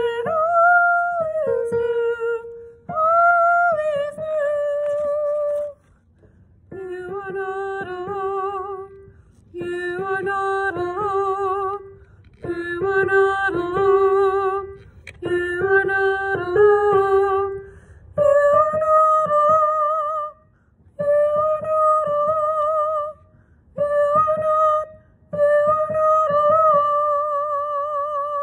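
A woman singing the soprano 1 line of a choral piece alone, in short phrases of held notes with vibrato and brief breaths between them.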